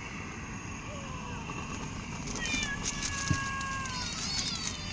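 Cats meowing, several long drawn-out calls that slide down in pitch and overlap one another, with a short knock about two-thirds of the way through.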